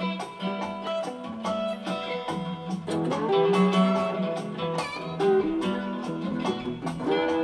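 Instrumental blues on acoustic guitar and slide guitar: plucked notes and strums, with the slide gliding between pitches and a long bending slide near the end.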